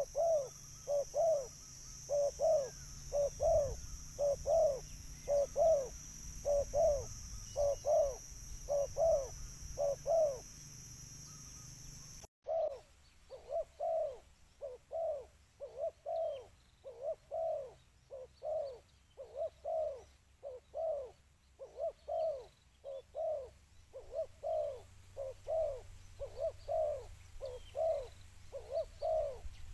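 Spotted dove (tekukur) cooing over and over, short coos coming about twice a second in a steady run. About twelve seconds in, an abrupt splice cuts out a steady high whine in the background while the cooing carries on.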